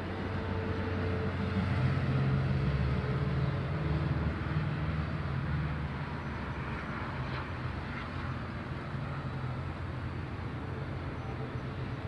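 Steady low drone of distant engine noise over a faint background hiss, a little louder from about two to six seconds in.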